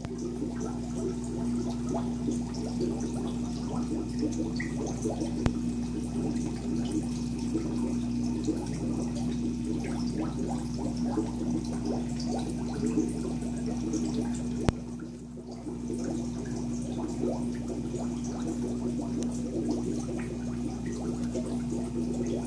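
Air-driven aquarium sponge filter bubbling and gurgling continuously over a steady electric hum from the air pumps. Two sharp clicks, about five and fifteen seconds in.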